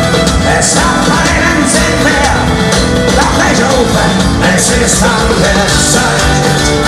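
A medieval folk-rock band playing live through a venue PA, with fiddle, acoustic and electric guitars, drums and singing. Heard loud from among the audience.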